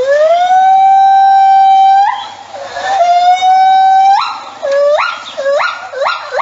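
A small animal crying: two long wails, each about two seconds, rising at the start, holding one pitch, and breaking off in a sharp upward yelp, then three short rising cries near the end.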